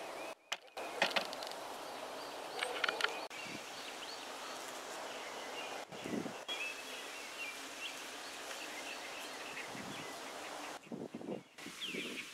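Steady hum of many bees working a flowering holly tree, with scattered bird chirps. The sound drops out briefly twice, about half a second in and near the end.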